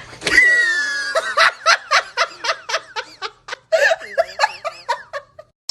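A person laughing hard: a high cry at the start, then a quick run of short laughing bursts, about four a second, that trail off and stop near the end.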